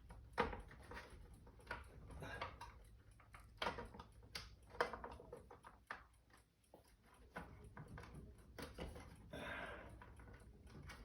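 Irregular light clicks, taps and knocks of window-shade hardware being handled and fitted into its mounting clips, with a few sharper snaps among them.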